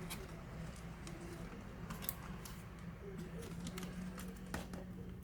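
Scattered light clicks and taps of small laptop parts being handled and worked loose during disassembly, over a steady low hum.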